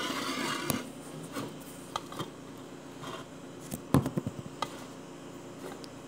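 Handling noise from a phone held close to the microphone: a brief rustle at the start, then scattered taps and knocks, the loudest cluster about four seconds in.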